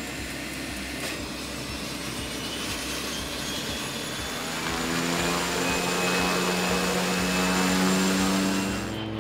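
Beechcraft T-34C turboprop running on the ramp. A rushing noise gives way about halfway through to a louder, steady propeller hum with a faint high turbine whine above it.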